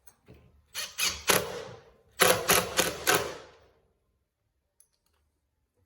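Power drill driving screws through a blind mounting bracket into the wall, in two bursts of rapid clicking, the second louder and about a second long.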